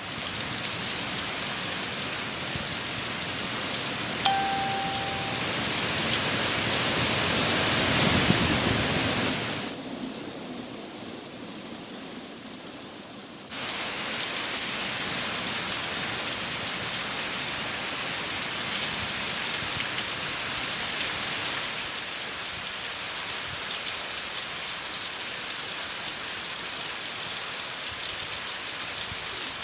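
Hurricane rain and wind, a dense steady hiss that swells around eight seconds in, drops quieter for a few seconds, then comes back as strong as before. A brief single tone sounds about four seconds in.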